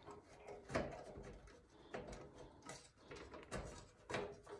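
Faint, short knocks and clicks of hands working a plate loose inside a Cougar Conquer 2 PC case, about one a second.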